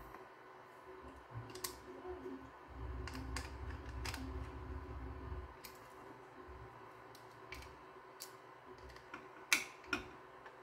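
Faint, scattered clicks and taps of a small stepper motor, a screwdriver and a 3D-printed plastic mount being handled and screwed together, with a low rumble of handling from about three to five and a half seconds in.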